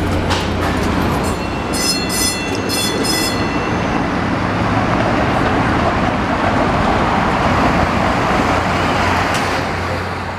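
PCC streetcar running along its track with a steady rumble and low hum. A quick run of high beeps sounds about one to three seconds in.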